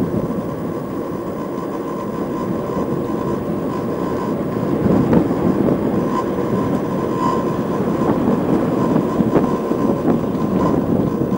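A large vehicle passing with a steady noise that grows louder about four seconds in, with a steady high tone running through it.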